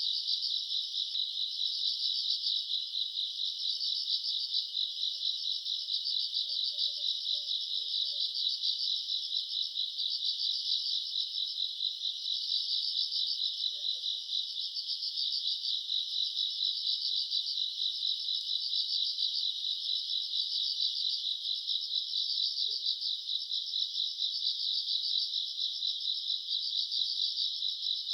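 Night chorus of grass insects, mostly crickets, chirring steadily in a dense, rapid trill.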